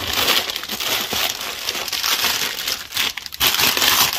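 Crumpled newspaper packing rustling and crinkling as gloved hands dig through it to unwrap a dish, with a short lull about three seconds in.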